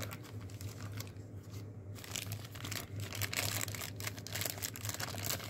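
Clear plastic bag crinkling as a folding knife is unwrapped from it by hand. The crinkling is sparse at first and grows dense and continuous from about two seconds in, stopping just before the end.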